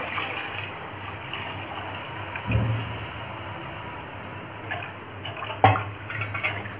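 Buttermilk mixed with gram flour (besan) being poured into a hot pan of fried masala while it is stirred, a steady liquid pouring and splashing sound. Two knocks in the pan, one about two and a half seconds in and a sharper one near the end.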